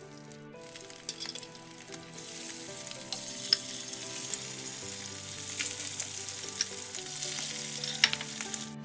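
Pounded beef slices sizzling as they fry in hot cooking oil in a frying pan. The sizzle starts about half a second in and grows louder, with a few sharp clicks of metal tongs against the pan as pieces are added and moved.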